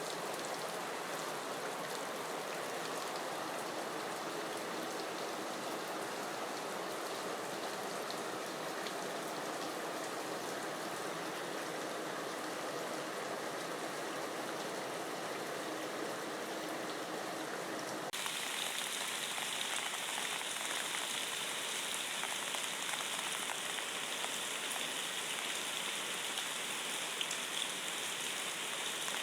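Steady rain falling, an even hiss of drops with no single events standing out. About two-thirds of the way through, the sound switches abruptly to a brighter, hissier rain.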